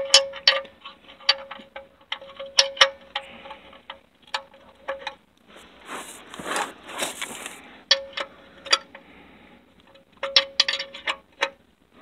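A 17 mm steel wrench clicking and clinking on a magnetic oil drain plug as the plug is snugged down into the oil pan: irregular sharp metallic clicks with a short ring after each, in two runs, with a brief rustle between them about six seconds in.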